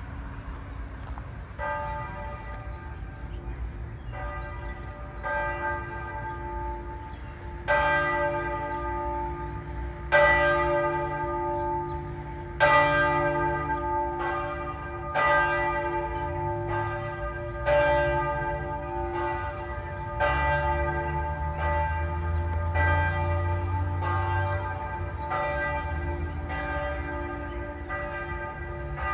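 Church tower bells ringing: a long series of struck notes about every one to two seconds, each one ringing on into the next. They start about a second and a half in and are loudest through the middle.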